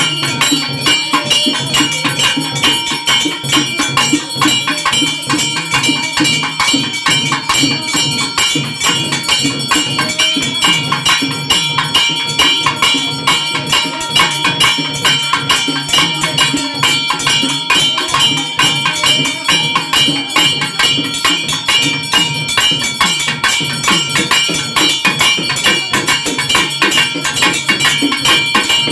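Fast, continuous festival drumming on double-headed cylindrical drums, loud and unbroken, with steady high ringing tones over the beat.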